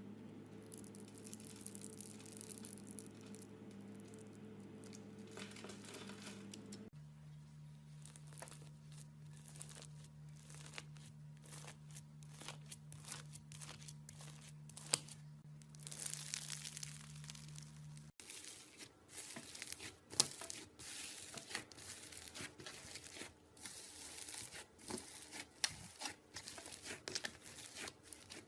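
Slime being mixed and squished by hand, a run of quiet sticky crackles and pops over a low background hum that changes abruptly twice.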